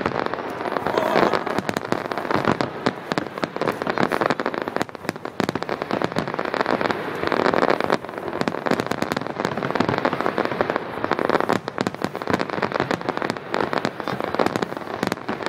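Aerial fireworks bursting overhead in a dense barrage, a continuous rapid crackling of countless small pops with louder swells about a second in and again near eight seconds.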